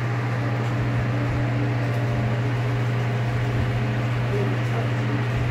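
Steady low mechanical hum of ventilation fans in a submarine engine room, with a fainter steady tone above it.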